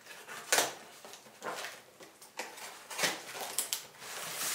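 Box cutter slicing through packing tape and scraping along a cardboard box seam: a series of short scraping strokes, the loudest about half a second in.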